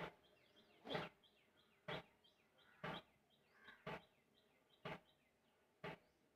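A short, sharp tick repeating evenly about once a second, with faint high chirping, like small birds, in the background.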